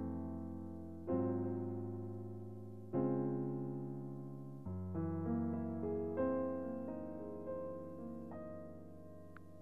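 Piano playing a slow jazz ballad. A few full chords are struck about two seconds apart and left to ring and fade, then a gentler run of notes sounds over a held low bass.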